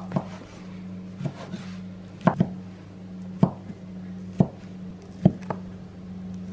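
Kitchen knife chopping through ham slices onto a wooden cutting board: sharp knocks of the blade on the board about once a second, now and then two in quick succession.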